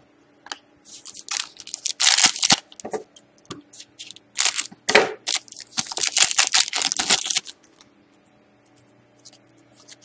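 Shiny foil wrapper of a hockey card pack being torn open and crinkled by hand: a dense run of sharp crackles and rips that stops about three quarters of the way through.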